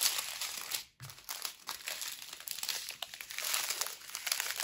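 Thin plastic crinkling and rustling as small sealed bags of diamond-painting drills are handled and pushed into a plastic bag, with many fine crackles; it stops for a moment about a second in.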